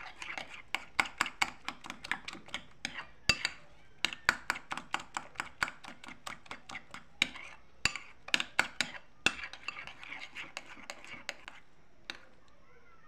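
Metal cutlery clinking and scraping against a ceramic bowl while stirring a soft banana paste, several quick clicks a second. The clicking stops near the end with one last tap.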